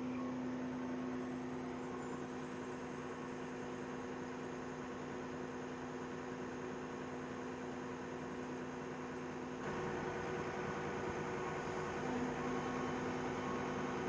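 Wirtgen W 210Fi cold milling machine running steadily, heard from the operator's seat: a constant droning hum with a steady tone. About ten seconds in it grows a little louder and noisier.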